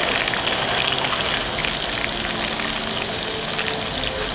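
Fish frying in hot oil: a steady sizzle with many small crackles.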